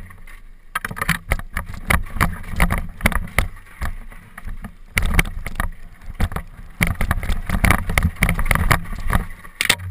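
Mountain bike descending a rocky dirt trail: wind buffeting the onboard camera's microphone in a steady low rumble, with frequent sharp knocks and rattles as the tyres and frame strike stones.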